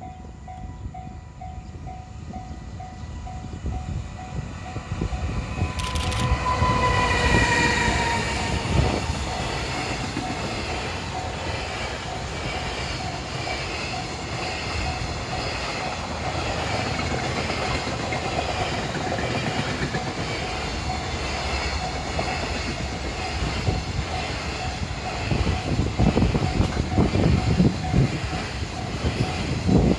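Level-crossing alarm ringing in an even, repeating pattern; about six seconds in, a JR Freight EF210 electric locomotive sounds its horn once, the pitch sinking slightly as it passes. The freight train's wheels then run loudly over the rails for the rest of the time, with knocks from the wagons growing near the end.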